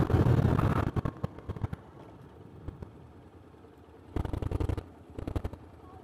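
Motorcycle running on the road with heavy low rumble for about a second, then cutting off abruptly to a quiet background with a few dull thumps and two brief rumbles later on.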